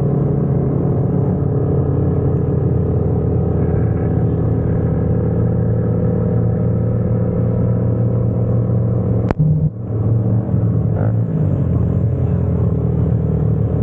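Motorcycle engine running at a steady speed, a loud low drone, with a single sharp click about nine seconds in.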